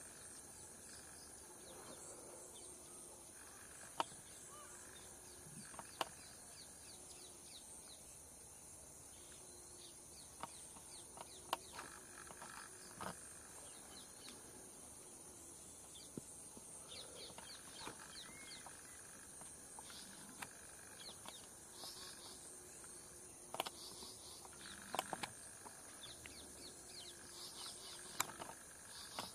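Forest ambience: a steady high-pitched insect drone with many short bird chirps and calls over it, and scattered sharp clicks, more frequent near the end.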